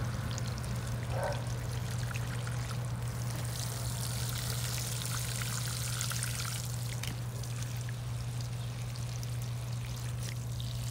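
Water streaming from the rose of a watering can onto garden plants, a steady hiss, over a constant low hum.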